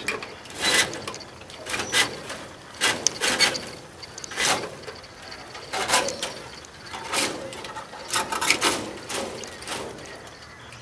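Chicken wire scraping and rattling against a 20 mm conduit tube as the tube is pushed through the mesh holes, in short irregular bursts about once a second.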